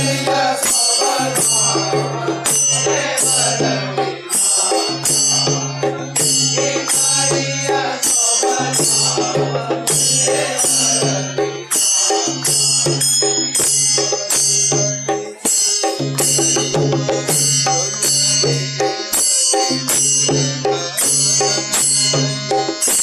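Devotional background music with drums keeping a steady beat, sharp strokes about twice a second.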